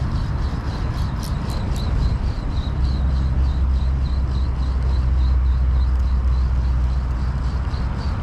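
Wind rumbling on the microphone, with a faint high tick about three times a second from a spinning reel being cranked to retrieve a jig. The rumble grows heavier about three seconds in.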